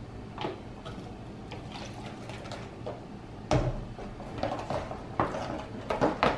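Water poured from a plastic bottle into a plastic tub of glue, then hands and a spoon stirring and squishing the wet, watery slime with small irregular squelches and taps. A single sharp thump about three and a half seconds in, as the bottle is set down on the wooden table.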